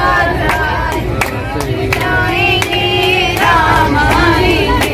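A group of voices, women's leading, singing a Hindu devotional bhajan together, with hand-clapping keeping time about two or three claps a second.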